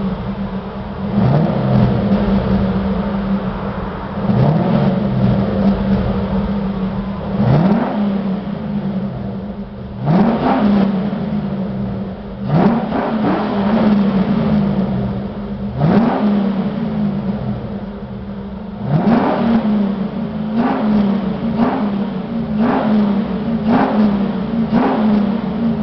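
Ford Mustang Cobra V8 through a Roush side exhaust with an X-pipe, idling and revved in about a dozen short throttle blips that each fall back to idle. The blips come every few seconds at first and about once a second in the last few seconds.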